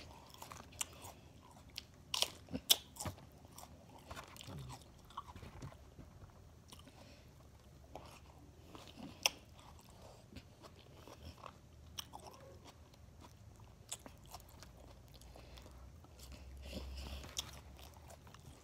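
A person chewing a mouthful of crunchy raw salad greens close to the microphone, with irregular crisp crunches and small mouth clicks.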